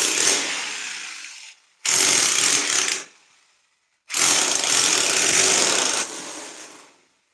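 Handheld electric power tool working into brick and concrete at the base of a wall, run in three loud bursts, short, shorter, then about three seconds long, each fading out as it is released.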